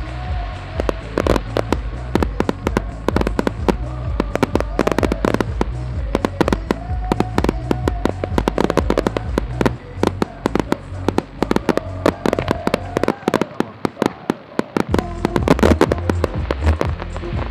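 Fireworks display: a dense, continuous barrage of bangs, pops and crackles from aerial shells, with a heavy, boomy low end. The firing thins briefly a little after the middle, then picks up into a louder volley near the end.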